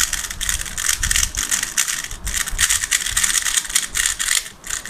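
Plastic 3x3 speed cube, a Thunderclap V3, being turned rapidly by hand: a fast, continuous clatter of layer turns. The cube is freshly lubricated with a fast lube and turns very fast.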